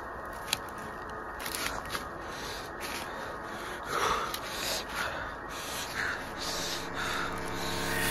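Dry fallen leaves rustling and crunching as someone moves and grabs through leaf litter, with a few sharp clicks in the first couple of seconds. A faint steady hum comes in near the end.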